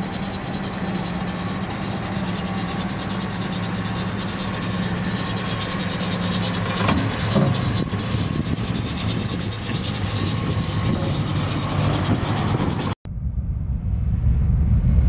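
Car engine running steadily at idle, with an even hiss over a low hum; likely the Cord's swapped-in GM 5.3-litre V8. It cuts off abruptly about thirteen seconds in, and a low rumble then swells up near the end.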